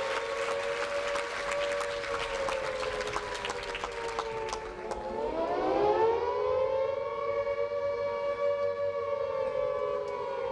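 Air-raid siren wailing: it rises and holds, falls away about four to five seconds in, then rises and holds again. Clapping dies out during the first half.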